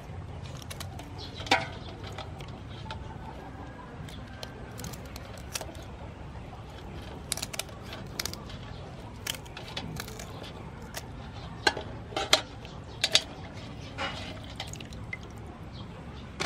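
Kitchen scissors snipping through mantis shrimp shells as the shrimp are lifted from a metal basin of water, with water dripping and splashing. The cuts are short, sharp clicks scattered throughout, the loudest about a second and a half in and a cluster of them at around twelve to thirteen seconds.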